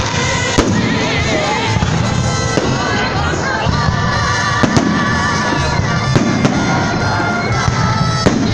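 Festive fireworks salute going off, with sharp bangs every second or two over loud music.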